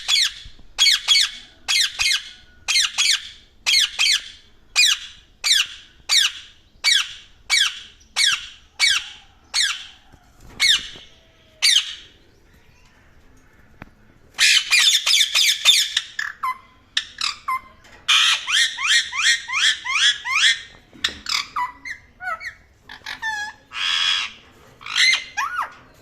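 An Indian ringneck parrot giving loud, harsh screeching calls, about one a second for the first twelve seconds. After a short pause come fast runs of chattering calls and a few single squawks.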